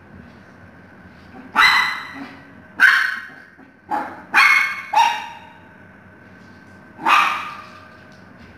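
Maltese puppy giving high-pitched play barks: six short, sharp barks, four of them close together in the middle and one more near the end.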